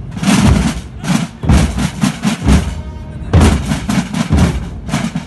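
A marching drum group of many large bass drums and other drums beating a heavy rhythm together: single loud beats, a quick run of strokes in the middle, then single beats again.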